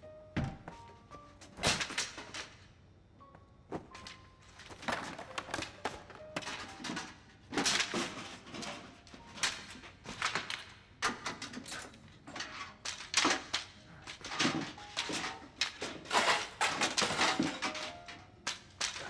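A long run of knocks, thumps and clatter, some in quick clusters, as things are bumped and knocked about in a cramped closet, with soft music underneath.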